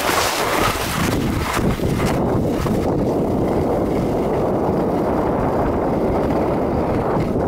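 Wind rumbling on the microphone of a camera carried by a moving skier, a steady low rush. Skis scrape and hiss on the snow in the first two seconds.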